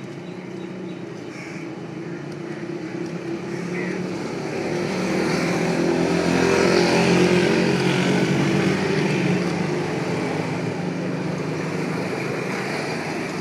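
A motor vehicle's engine passing close by, growing louder to a peak about halfway through and then slowly fading away.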